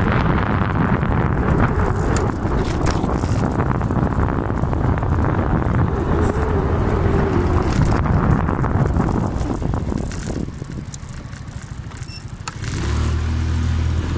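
Vehicle riding along a road, engine and road noise with wind buffeting the microphone. The noise eases off about ten seconds in, then a steady low engine hum comes in near the end.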